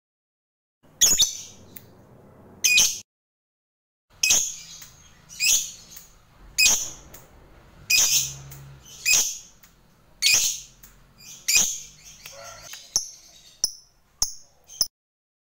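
Lutino lovebird giving shrill, sharp calls repeated about once a second, breaking into a few quicker, shorter chirps near the end.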